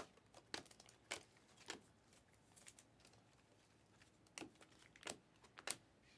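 Panini Optic basketball cards being flipped through by hand, each card slid off the stack with a short crisp snap of card against card. Three snaps come about half a second apart, then after a quieter pause three more near the end.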